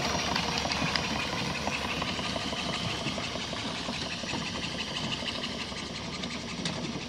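Miniature live-steam traction engine chuffing as it drives off, a fast run of short exhaust beats that fades steadily as it moves away.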